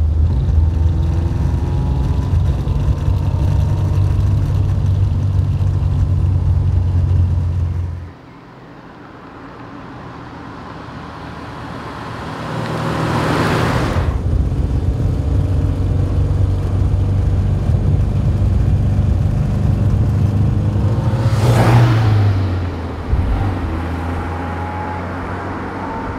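1960 Alfa Romeo Giulietta Sprint Veloce's twin-cam four-cylinder engine pulling steadily under load, heard from inside the cabin. After a sudden drop about 8 seconds in, the car is heard approaching and passing close by with a rush of engine and tyre noise. It runs on steadily, passes again about 21 seconds in with its note falling, then grows quieter as it drives away.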